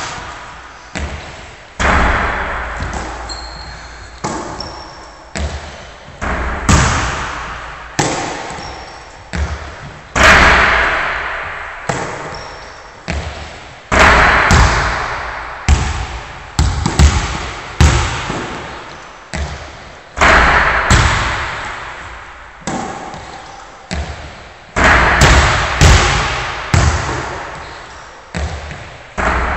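Basketball shots and bounces on a hardwood gym floor: repeated thuds of the ball, about one every second or two, hitting the floor and the hoop. Each hit rings on with a long echo in the hall.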